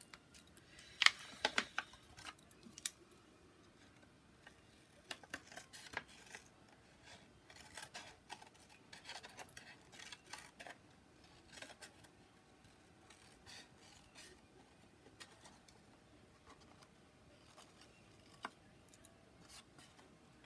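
Scissors snipping in short, irregular cuts with pauses between them; the loudest snips come about a second in.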